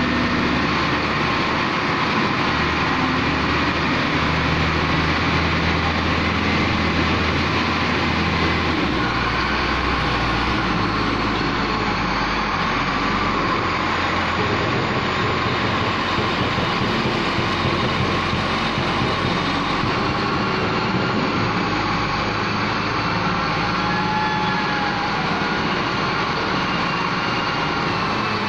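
LiuGong wheel loader's diesel engine running steadily under load as the bucket digs into and pushes a pile of loose material. The engine note shifts a few times.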